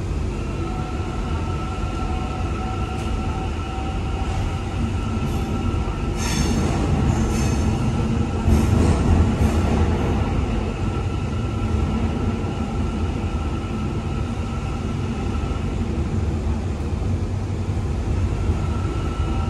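Interior of an Istanbul M6 metro car under way in the tunnel: steady rumble of wheels on rail with a constant whine. A stretch of high-pitched wheel squeal and rattle comes about six to ten seconds in, where it is loudest.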